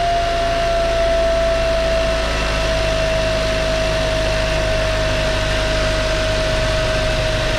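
2015 Kia Optima's 2.0L turbocharged four-cylinder running with a steady whining whistle from the turbo over the engine noise, the whine sinking slightly in pitch. The whine is the sign of a boost leak: the welds on the bottom of the intercooler had blown out.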